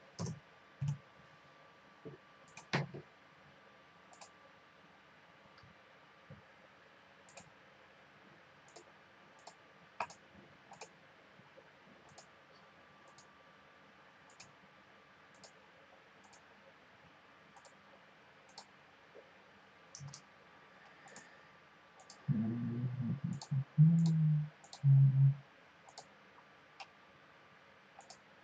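Computer mouse clicking faintly, single clicks every second or so while paging through a print preview. Near the end come a few short, louder low sounds.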